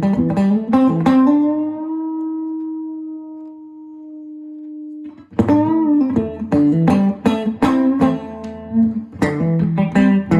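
Electric guitar playing a quick picked phrase. About a second and a half in, a note is bent up slightly and left to ring, fading for several seconds. Busy picking starts again a little past five seconds in.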